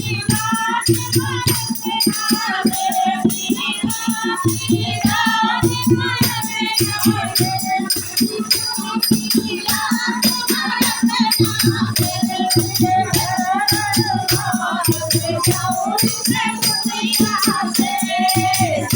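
Hindi devotional bhajan: singing over a fast, steady rhythm of rattling hand percussion.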